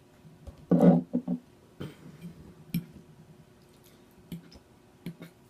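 Wet mouth sounds of a person eating: a loud short burst about a second in, two smaller ones just after it, then scattered soft smacks and clicks of chewing.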